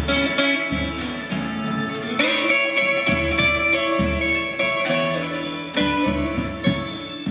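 Electric guitar playing a slow instrumental passage: single picked notes and chords, each struck sharply and left to ring, a new one every second or two.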